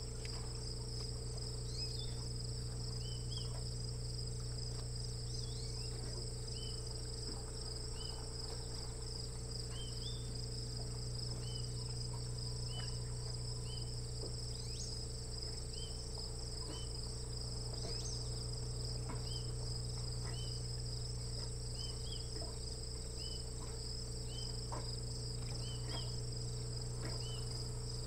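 Steady outdoor chorus of insects: a fast, pulsing high trill that runs on without a break, with short high chirps scattered through it, over a low steady hum.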